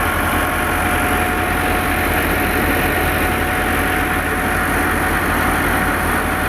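A tractor-driven wheat thresher running steadily: the tractor's diesel engine and the threshing machine make a loud, unbroken drone with a low hum and a steady whine.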